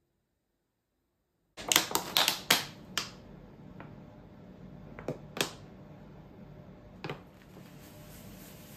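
Dead silence for about a second and a half, then a quick run of sharp clicks and knocks, followed by a few single clicks over a faint steady hum.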